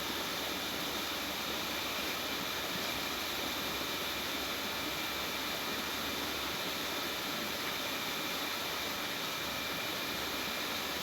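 Steady, even hiss with a faint high whine and no distinct knocks or clicks: background noise such as a fan or the recording's own hiss.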